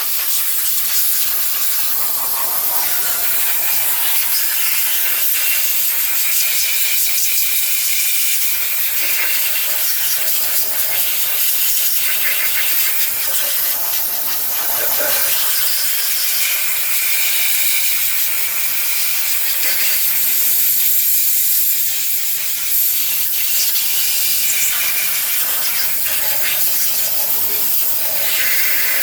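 High-pressure cleaning jet hissing steadily as it blasts grime off engine parts, its strength shifting a little now and then.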